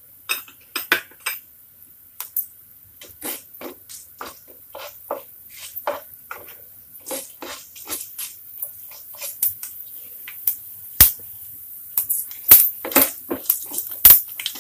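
A slotted spatula knocking and scraping against a nonstick kadhai while whole spices are stirred in oil: a run of short, irregular clicks and knocks, louder near the end.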